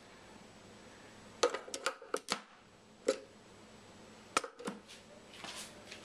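Acrylic LED light fixture being slid and seated on an acrylic algae scrubber box: a quick cluster of light plastic clicks and taps about a second and a half in, then single clicks near three and four and a half seconds.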